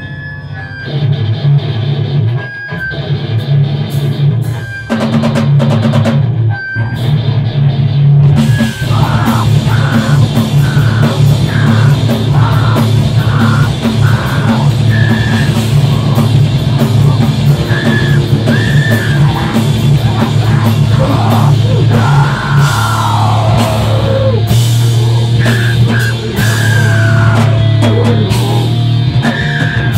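Screamo band playing live and loud: distorted electric guitar, bass guitar and a drum kit with crashing cymbals, with screamed vocals. The first several seconds are sparser, with stop-start hits that cut off abruptly, then the full band comes crashing in about eight seconds in.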